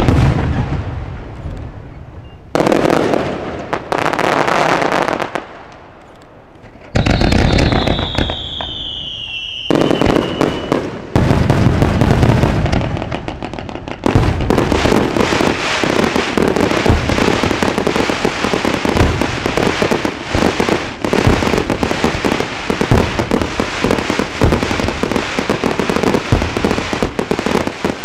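Fireworks display: a sharp bang, then shell bursts a few seconds apart, one with a falling whistle. From about halfway there is a dense, continuous crackle of many small reports.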